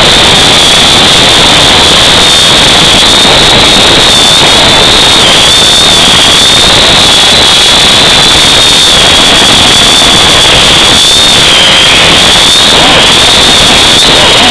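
Quadcopter drone's motors and propellers whining in flight, heard through its onboard camera: a loud, steady high tone that wavers slightly with throttle changes, over an even rushing hiss.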